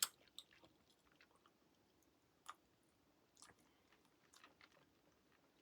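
Faint chewing: a few soft, scattered mouth clicks and smacks of someone eating food, spaced out over a few seconds.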